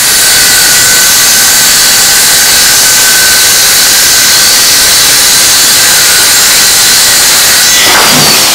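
Electric power saw running at full speed and cutting through a thick, hard oak plank, trimming off a split end; a loud, steady whine over dense sawing noise that winds down with a falling pitch near the end.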